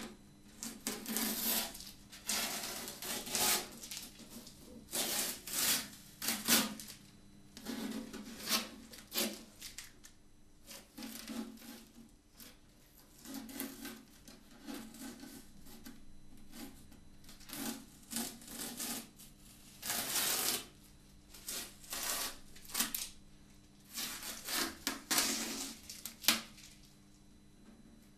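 Masking tape being peeled off the binding of a freshly lacquered archtop guitar body, in a series of short, irregular pulls with brief pauses between.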